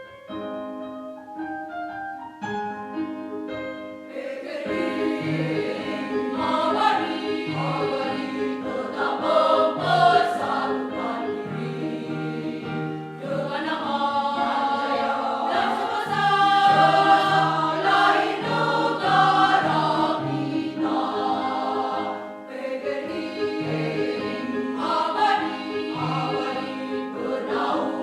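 Choir singing with instrumental accompaniment: a few seconds of sparse sustained instrumental notes open the piece from silence, then the full choir comes in about four to five seconds in, over a repeating bass line.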